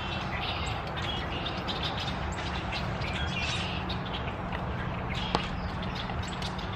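Small birds chirping in short scattered calls over a steady outdoor hiss, with one sharp click about five seconds in.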